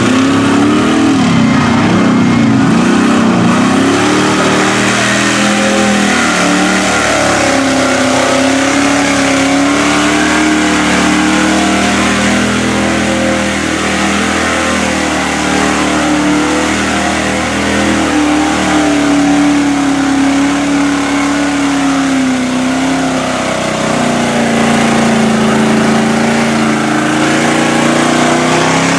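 Lifted Chevrolet Silverado mud truck on tractor tires running hard through a mud pit, its engine revving with the pitch rising and falling continuously as the throttle is worked. Mud and water are thrown up by the tyres throughout.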